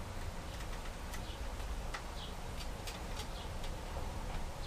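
Scattered small, sharp clicks of a Phillips screwdriver backing out a small screw from a laptop screen frame, over a steady low hum.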